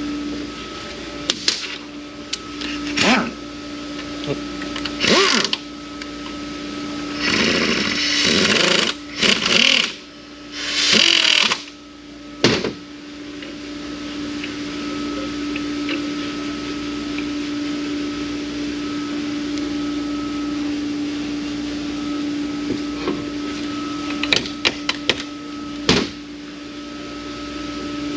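Workbench handling noise: metal tools and transmission parts clinking and knocking, with louder scraping or rustling bursts from about seven to twelve seconds in. A steady hum runs underneath throughout.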